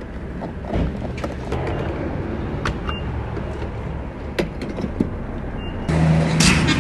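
Car sounds: scattered clicks and knocks over a low rumble, then near the end a steady engine hum that starts suddenly.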